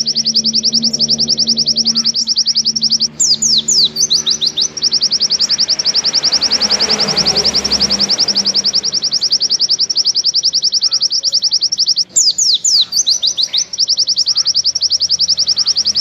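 White-eye (pleci) singing a long, unbroken 'nembak panjang' trill: a very fast, even run of high notes that goes on without pause. Twice it breaks briefly into a short flurry of sliding notes, a few seconds in and again about three-quarters of the way through.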